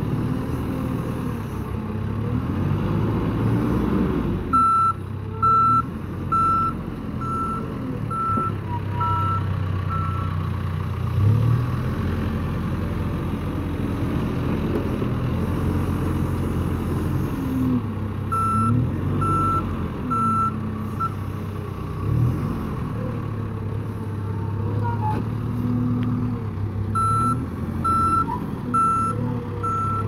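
A John Deere 310K backhoe loader's diesel engine running, its revs swelling and dropping as the machine works, while its reversing alarm beeps about once a second in three spells as it backs up.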